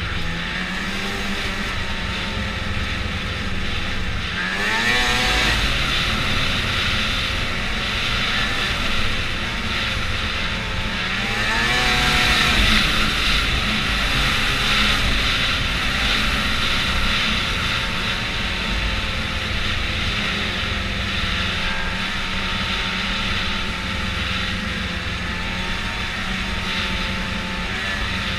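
Snowmobile engine running under way. The revs climb twice as the throttle opens, once about five seconds in and again near the middle, then settle back to a steady cruise.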